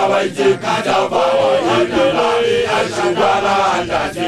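Men's voices chanting a Sesotho initiation-school song, a lead male voice with others singing together in held, gliding notes.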